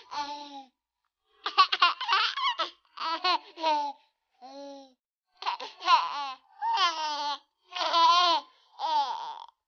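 A baby giggling and babbling in a string of short bursts with brief silences between, the pitch sliding up and down within each burst.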